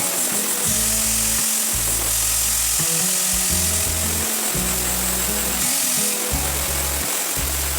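Angle grinder running, grinding a drill bit's cutting edge, with a steady high-pitched hiss. Background music with a shifting bass line plays over it.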